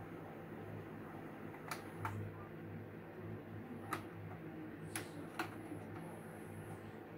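A General Electric VG2063 VHS VCR clicking: about five short, sharp clicks spread over a few seconds, one as a front-panel button is pressed. A steady low hum runs underneath.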